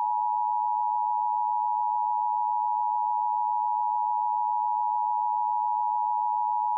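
Emergency Alert System attention signal: a steady electronic dual tone of two close pitches (the 853 and 960 Hz pair) held at an even level, the alert tone that precedes an emergency broadcast message.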